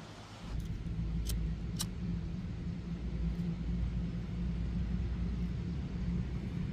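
A steady low rumble that comes in about half a second in, with two faint sharp clicks shortly after.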